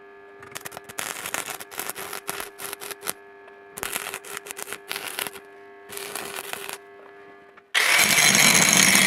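Electric arc welding on steel tube: crackling and sizzling in three bursts over the steady hum of the welding machine. Near the end an angle grinder starts up abruptly and loudly, grinding down the fresh weld bead.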